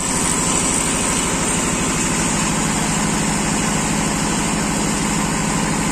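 An engine idling steadily with an even, rapid beat.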